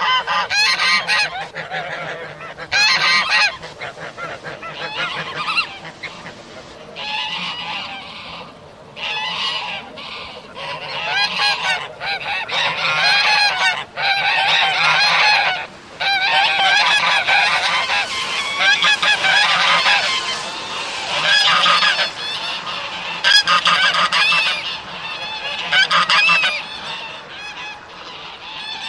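A group of geese honking: many loud, overlapping calls in irregular bursts, with only brief pauses between bouts.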